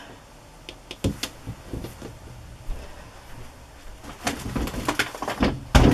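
Small hard clicks and taps of rubber stamps and a clear acrylic stamping block being handled and set down on a craft table. A couple come about a second in, a busier run starts about four seconds in, and the loudest knock comes just before the end.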